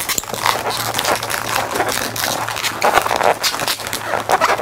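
Latex twisting balloons squeaking and rubbing against each other in irregular bursts as they are twisted and the nozzle of one is wrapped into the pinch twists of another by hand.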